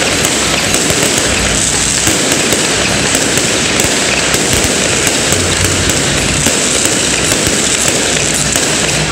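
Fireworks going off in a dense, continuous crackle of rapid bangs, loud and unbroken.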